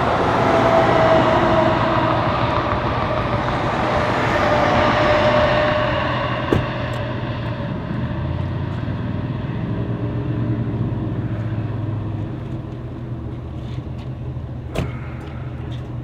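Car engine and tyre noise heard from inside a moving car, its pitch slowly falling over the first several seconds as the car slows, then quieter and steady. A single sharp click comes about a second before the end.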